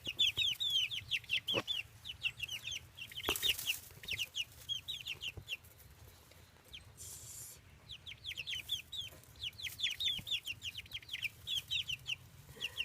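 Baby chicks peeping: rapid, high, down-slurred cheeps, several a second, which pause for a couple of seconds about halfway through and then start again.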